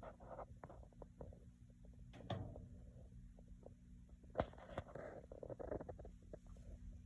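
Faint handling noise: soft rustling and scattered small clicks, with one sharper click about four and a half seconds in, over a steady low electrical hum.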